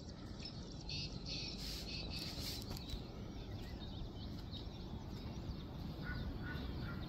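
Small birds chirping, with a run of short repeated calls starting near the end, over a low steady background noise.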